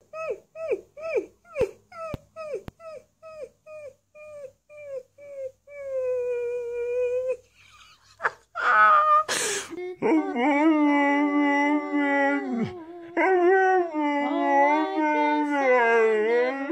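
A fluffy puppy gives a quick run of short yips, each falling in pitch, about two a second, then holds one short howling note. After a brief burst of noise, a white husky howls and 'talks' in long, wavering notes that rise and fall in pitch.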